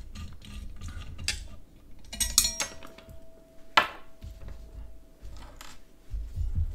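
Blue Yeti microphone being worked off its metal desk stand by hand: quick clicks as the side mounting knob is twisted loose, then a clatter of metal as the microphone comes free, with a faint ring lingering after it. A single sharp knock comes about four seconds in, and low handling thuds near the end.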